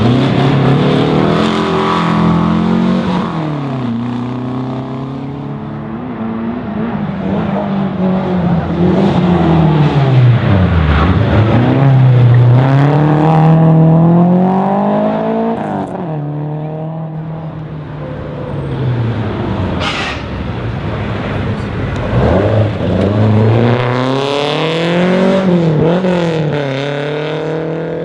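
Historic rally cars taking a tight turn one after another, engines revving hard. Each engine's pitch drops as the car slows for the turn, then climbs again in steps through the gears as it accelerates away. The run starts with a Volkswagen Beetle's air-cooled flat-four.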